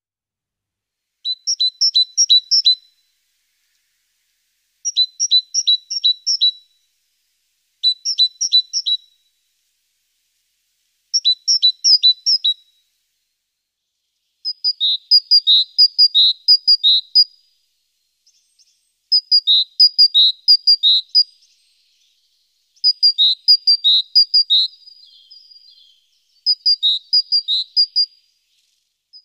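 A small songbird singing in about eight short phrases of quick, high chirps. Each phrase alternates between two pitches and lasts a second or two, with short pauses between phrases.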